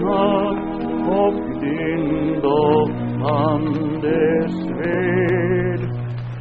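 Fenno-Swedish folk song sung in Swedish: a single voice holding long notes with vibrato over a low sustained accompaniment.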